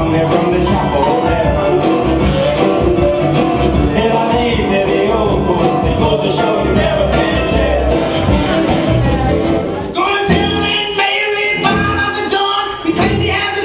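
Upbeat dance music with a steady, strong beat. About ten seconds in, the bass drops away and the music changes.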